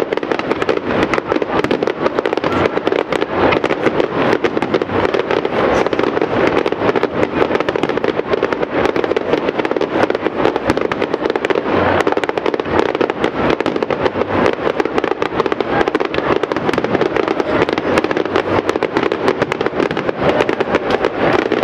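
Fireworks display crackling and popping densely and without letup, from crackling stars and bursts in the air and fountain-like bursts low down.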